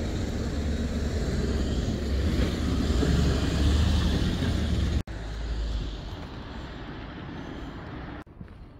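A lorry's engine and tyres rumble as it passes close, getting louder over the first four seconds. About five seconds in the sound cuts off abruptly and quieter road traffic follows.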